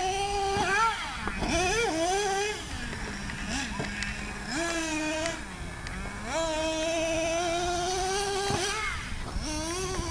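Small nitro engine of a Traxxas radio-controlled truck revving up and easing back several times, dropping to a low steady idle about three seconds in and again briefly near the middle.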